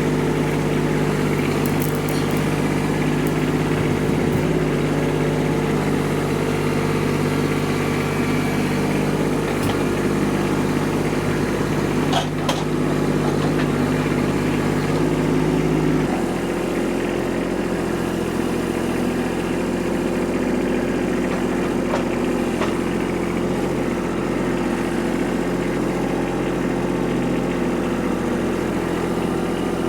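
Kubota tractor's diesel engine running steadily. About halfway through, its note changes abruptly to a lower steady pitch.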